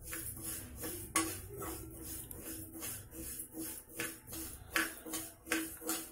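Metal spoon stirring dry moong dal in a steel frying pan as it roasts, the lentils rattling and scraping against the pan in irregular strokes, over background music with a steady beat.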